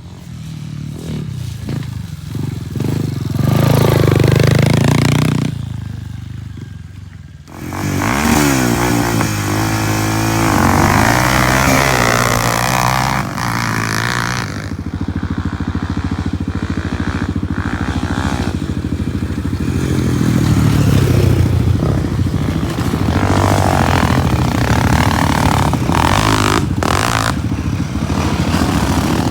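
Four-stroke ATV and pit-bike engines running on a dirt track, revving up and falling off as the riders race. The sound drops away for a couple of seconds around six seconds in, then comes back loud as an engine revs hard near eight seconds.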